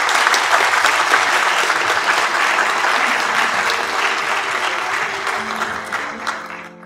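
Audience applauding: dense clapping that thins out and fades away near the end, over soft background music.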